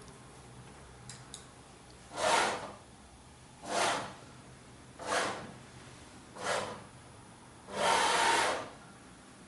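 Motorized target carriage of a WMT-1 accommodation test rig sliding along its rail in steps: five short runs, each rising and fading, roughly a second and a half apart, the last one longer. A faint steady hum lies underneath.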